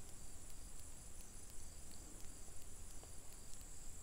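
Low background noise with no speech: a steady high-pitched hiss with faint, evenly spaced ticks over a low hum.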